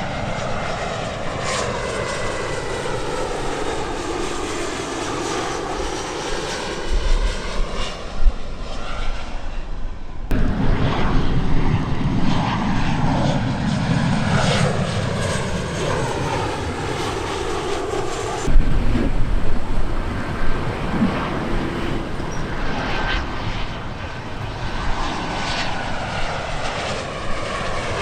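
Jet airliner engines on landing approach, a steady roar with a sweeping tone that falls and rises as each aircraft passes. The sound changes abruptly about ten seconds in and again about eighteen seconds in, as one landing gives way to the next.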